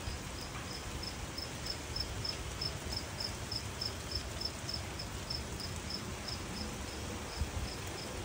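A cricket chirping steadily, about three short high chirps a second, over the even hiss of light rain and a low rumble. A soft thump comes near the end.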